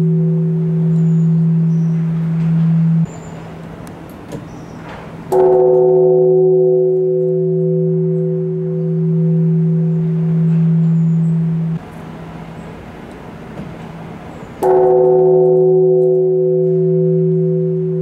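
Large bronze Japanese temple bell (bonshō) struck twice, about nine seconds apart. Each stroke brings a bright clang and then a long, deep ringing hum that pulses gently. The ringing breaks off abruptly a few seconds before each new stroke. These strokes are part of a tolling of ten strokes at 5 p.m.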